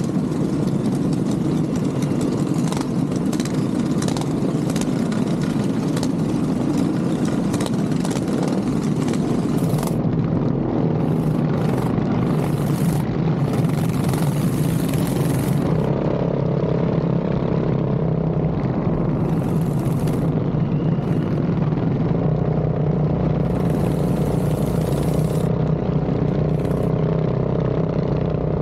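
Minibike engine running steadily while riding, a continuous mechanical drone with a fairly even pitch.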